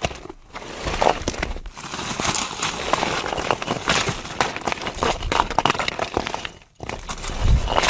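Rocks and stones cracking and sliding: a dense rattle of many small knocks and grinding scrapes. It breaks off suddenly near the end, then another slide starts with a low rumble.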